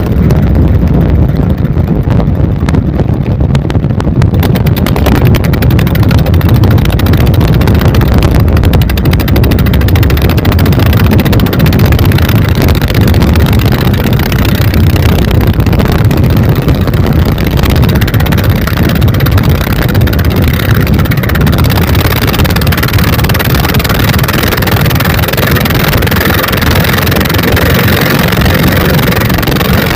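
Twin 24 HP Dompeng single-cylinder diesel engines running loud and steady, driving the boat under way on its speed test.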